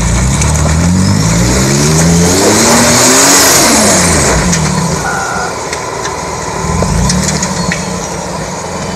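Jeep Wrangler's engine revving under load as it crawls over wet rock ledges, rising in pitch for the first few seconds, then dropping back, with a hiss at the peak. It swells again briefly later.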